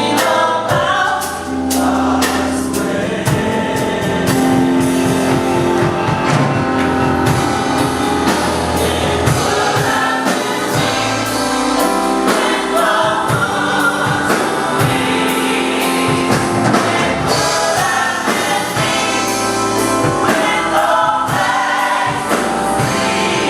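Gospel choir singing with band accompaniment and a steady beat.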